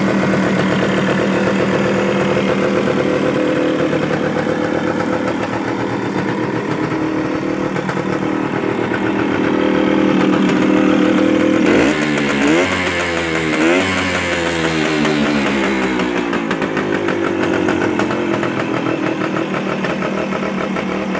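Suzuki TS185's single-cylinder two-stroke engine idling steadily, revved twice about twelve seconds in, the pitch rising and falling before it settles back to idle.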